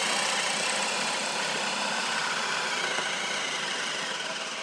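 Kobalt cordless drill in drill mode on speed 2, running steadily under load as a spade bit bores into a thick wooden beam.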